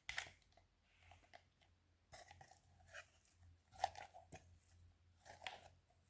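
Slime being squished and pressed, in four short crackly, crunchy bursts about a second and a half apart.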